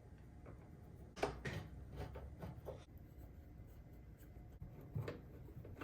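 Faint scraping and a few soft clicks of a screwdriver turning the screws that fix a power supply to the back of a computer tower.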